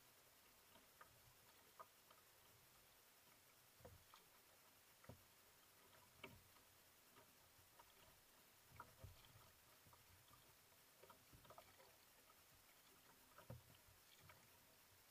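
Near silence, with faint, irregular splashes and knocks every second or two from a paddle blade dipping and water lapping against a paddled kayak's hull.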